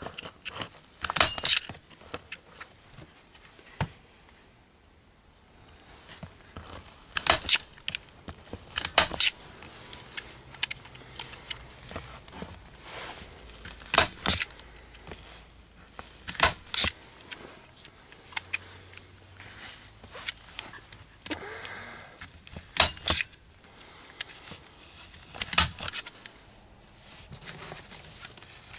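Handling noise from installation work: scattered sharp clicks and clatters, with rustling in between.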